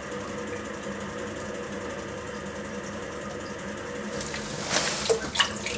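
Potter's wheel running with a steady hum while water-lubricated hands pull up the walls of a clay pot; from about four seconds in, a few short wet splashes of water and slurry.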